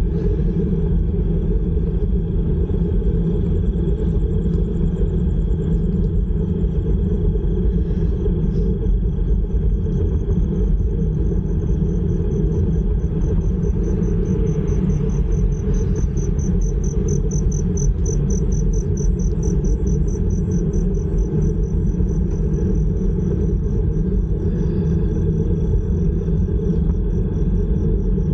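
Steady wind rumble buffeting the action camera's microphone as the bicycle rolls along at speed. A faint high, rapidly pulsing chirp comes in partway through, loudest near the middle.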